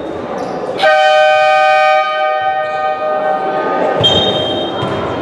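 A loud electric horn blast of several held tones sounds about a second in. It stays steady for about a second, then fades away with a long echo in a large hall, among ball bounces and shoe squeaks.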